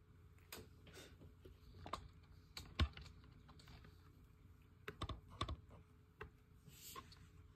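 Scattered light clicks and taps, irregularly spaced, like small hard objects being handled, with the sharpest click about three seconds in and a quick run of taps around five seconds.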